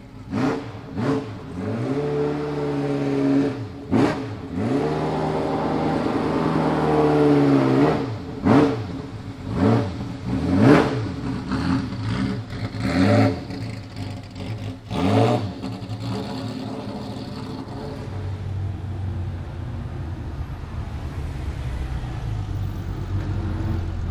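Ferrari F40 racing car's twin-turbo V8 revving. The revs rise and fall over several seconds, then come about six sharp throttle blips, each a quick rise and drop. For the last several seconds it settles to a steady low idle.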